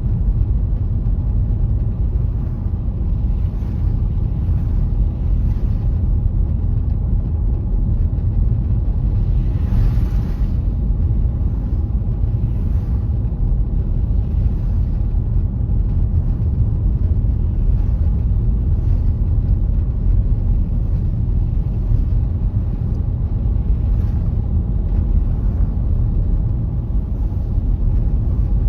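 Car driving on a snowy road: a steady low rumble of tyres and engine, with a faint hiss that swells softly every few seconds.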